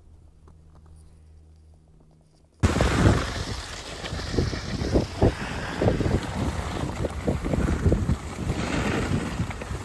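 A faint low hum, then, about two and a half seconds in, a sudden cut to loud wind buffeting the microphone, rushing with irregular low thumps.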